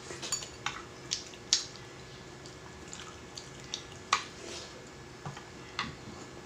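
Scattered wet clicks and smacks of eating close to the microphone, the sharpest about a second and a half in and again just after four seconds.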